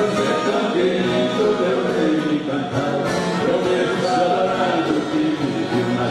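Live sertanejo caipira music: an orchestra of viola caipira guitars strumming and plucking while several voices sing together.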